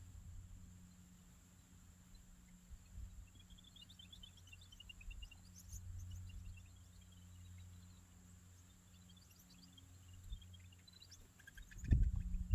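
A small bird chirping in two quick runs of high notes over a low rumble of wind on the microphone, with a few loud thumps near the end.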